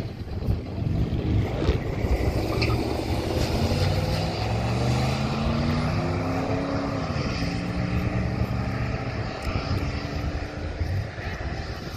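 A Chevrolet pickup and a red car launching on a drag strip, their engines revving up hard as they pull away, with one upshift about seven seconds in before the engine note climbs again.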